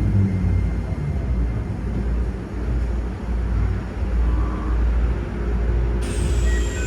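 Keikyu 1000-series electric train running, a steady low rumble of wheels and running gear. A pitched motor tone fades out at the start, and about six seconds in a high whine starts and slowly falls in pitch.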